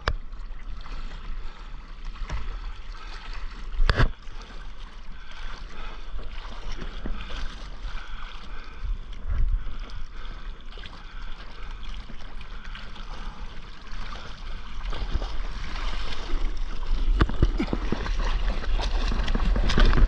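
Sea water lapping and splashing around a surfboard, with a sharp knock about four seconds in. The water noise grows louder over the last few seconds.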